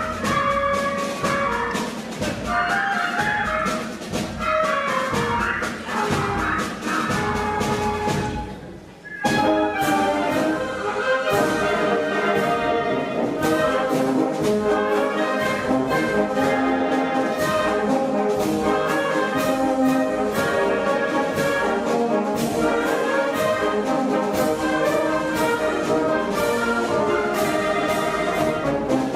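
Orchestral music led by brass. It dips briefly about nine seconds in, then a fuller brass passage comes in over a steady beat.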